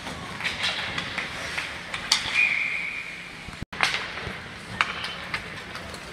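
Ice hockey play: sharp clacks of sticks and puck, the loudest just after two seconds in, then a steady whistle blast of about a second, typical of a referee stopping play. The sound cuts out for an instant a little past three and a half seconds.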